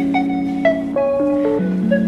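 Background music: a melody of pitched notes over a steady low line, the notes changing in a regular pattern.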